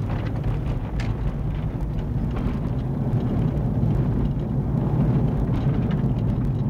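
Steady low driving rumble of a 1997 Chevy Blazer's 4.3-litre V6 and its tyres, heard from inside the closed cabin.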